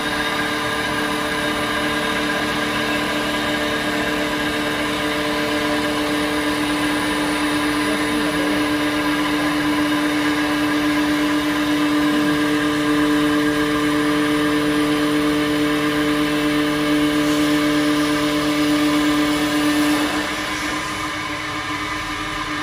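CNC wood lathe turning a wooden column: the spindle and cutter run with a steady whine over the hiss of the cut. About twenty seconds in the tone drops out and the sound falls as the cut ends.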